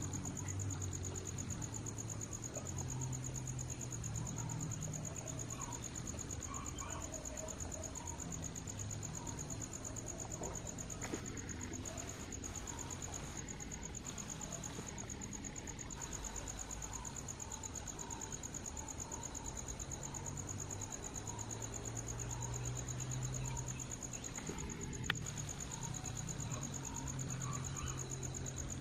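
Steady, high-pitched insect trill that runs on without a break, over a low, uneven rumble. A single sharp click sounds near the end.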